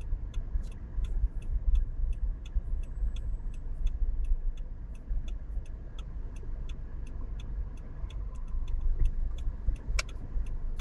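A car's turn-signal indicator ticking steadily, about three ticks a second, over the low rumble of the car heard from inside the cabin.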